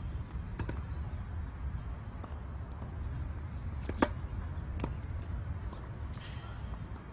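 Tennis racket striking the ball on a serve: one sharp pop about four seconds in, over a steady low rumble.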